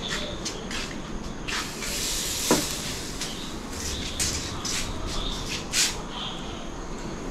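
Marinated mutton leg being laid on an oiled grill grate over hot charcoal: a burst of sizzling hiss about two seconds in, with a sharp clink against the grate, then a few short crackles as the meat sears.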